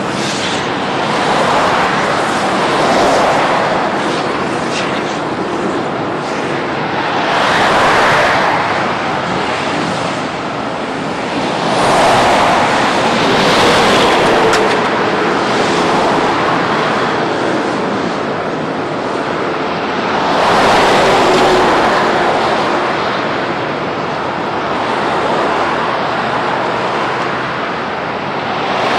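Highway traffic passing close at speed, one vehicle after another, each whoosh of tyres and wind swelling and fading as it goes by.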